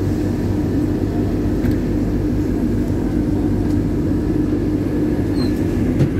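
Madrid Metro Line 1 train running out of the station into the tunnel, heard from inside the carriage: a steady rumble of wheels on rail with a constant motor hum.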